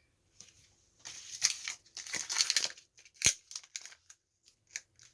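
Kinder Joy egg's foil wrapper crinkling and tearing as it is pulled open by hand, in several short bursts, with one sharp plastic click about two thirds of the way through and a few light ticks after.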